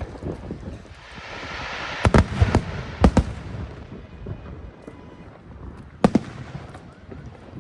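Large aerial fireworks shells bursting overhead. A hiss swells up, then comes a cluster of loud booms about two seconds in, two more about three seconds in, and a single boom about six seconds in.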